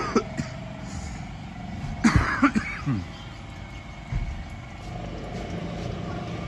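Automatic transmission fluid poured from a metal tin into a steel canister, heard as two loud sudden bursts with falling gurgles, one at the start and one about two seconds in, over a steady hum.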